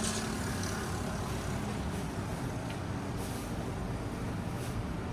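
Street ambience with vehicle engine noise: a low engine hum that fades about a second in, over a steady background of traffic.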